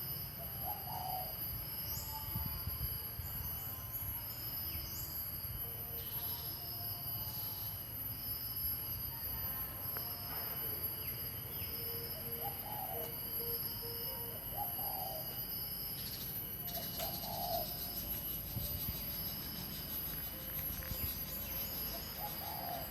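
Natural outdoor ambience. Short, low bird calls come several times over a steady, high-pitched insect drone and a low rumble.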